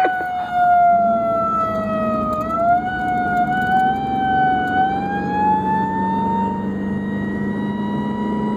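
Emergency vehicle siren wailing with a slow, uneven pitch: it slides down, swings back up and settles on a steady high note near the end. The steady drone of a vehicle driving lies beneath it.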